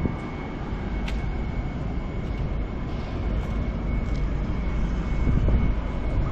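Steady low rumble of outdoor city background noise, with a faint steady high tone above it.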